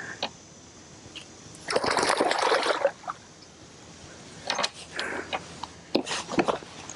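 Water splashing as a hooked bass thrashes at the surface, one heavy splash lasting about a second some two seconds in, then a few shorter splashes and knocks near the end.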